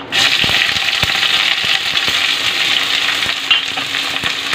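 Chopped onions sizzling in hot oil in a kadhai. The sizzle starts suddenly as the onions go in, then holds as a steady, loud frying hiss, with a few light clicks.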